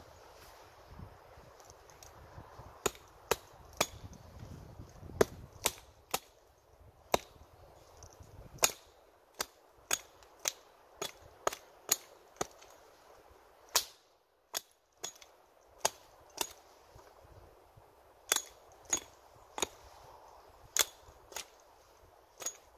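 Hatchet chopping at the end of an upright wooden stake: a run of sharp, irregular wooden strikes, often close to two a second, starting about three seconds in, with a brief pause about halfway through.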